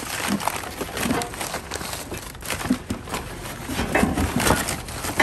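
Crumpled brown kraft packing paper crackling and rustling as it is pulled by hand out of a cardboard shipping box, in a quick, irregular run of crinkles.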